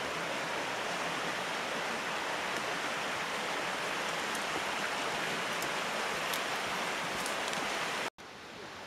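Running creek water, a steady even rushing. It cuts out abruptly a little after eight seconds and comes back quieter.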